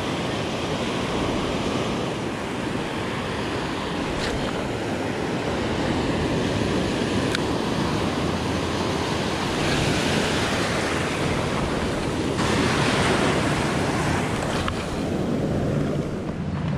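Ocean surf breaking and washing in foamy whitewater around the shoreline, a steady rushing wash whose tone shifts abruptly a couple of times.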